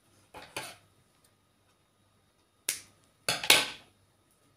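Hands rubbing and brushing against a crocheted yarn doll and its loose yarn: a few short scratchy rustles, the loudest about three and a half seconds in.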